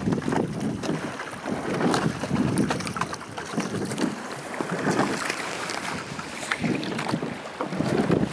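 Rowing boat moving on the water: oars working the water in swells that come every couple of seconds, with small knocks and clicks, and wind buffeting the microphone.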